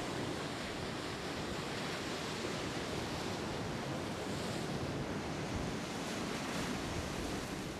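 Ocean surf breaking and washing up a sand beach: a steady rushing of waves.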